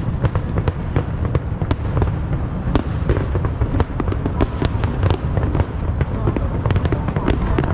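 Fireworks display in full barrage: deep booms run together without a break, with many sharp cracks and pops over them.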